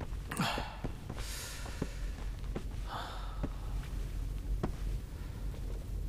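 A man sighing, with a few breathy exhalations and scattered soft clicks over a steady low hum.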